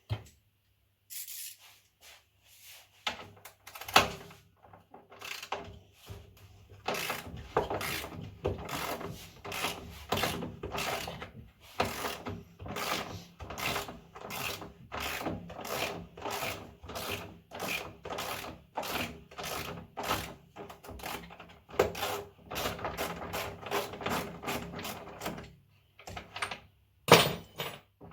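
Hand-tool work on a washing machine: a long run of even rubbing or scraping strokes, about two a second. A sharp knock comes about four seconds in and another near the end.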